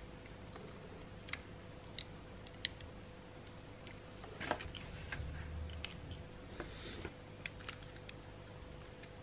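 Small plastic toy building bricks clicking and snapping together under the fingers as a brick figure is put together: scattered light clicks, several close together about four and a half seconds in.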